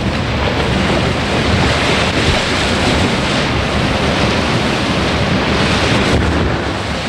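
Rough sea and wind: a loud, steady rush of waves with no distinct impacts, easing slightly near the end.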